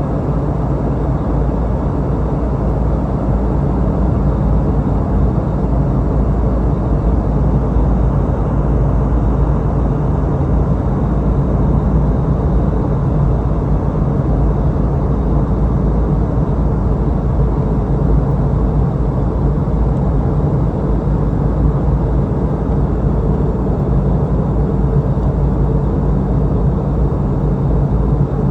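Steady cabin noise inside a Boeing 717-200 in flight during the descent: a continuous rush of airflow mixed with the low drone of its rear-mounted Rolls-Royce BR715 engines, with a steady low hum underneath.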